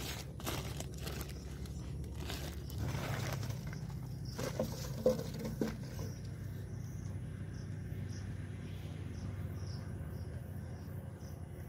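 Woven plastic sack crinkling and rustling as it is opened and handled, then a few light knocks about five seconds in. After that, faint evenly repeating high chirps, like insects, over a low steady rumble.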